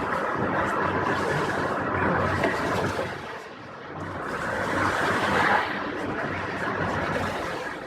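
Street noise of road traffic: a vehicle passes, swelling and fading about five seconds in.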